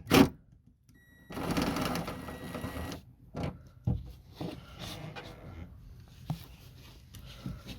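A ratchet wrench clicking rapidly for about a second and a half on a 10mm nut in a car door, then scattered light knocks and clicks of tools and metal parts.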